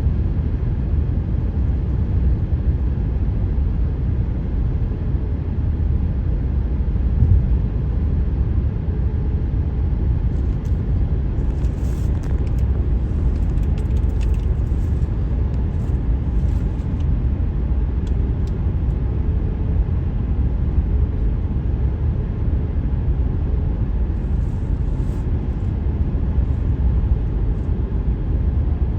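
Car driving at highway speed with a steady low rumble of tyres and road noise, and a few faint light ticks through the middle.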